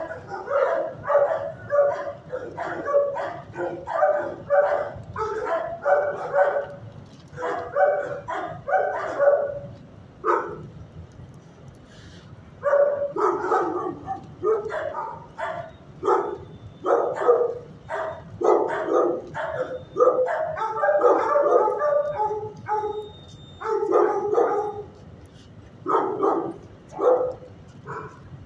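Dogs barking in a shelter kennel, many short barks in quick runs, with a lull of about two seconds a third of the way in.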